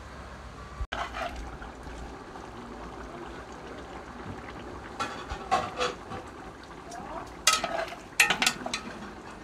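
Large aluminium pot at a rolling boil, stirred with a long metal spoon, with a steady bubbling noise. A dog barks in short bursts about five seconds in and again, louder, near the end.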